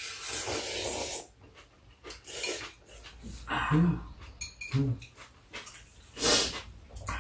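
Noodle slurping from two people eating ramen with chopsticks: several separate slurps, the longest right at the start and a sharp one about six seconds in. Two brief low-pitched sounds come near the middle.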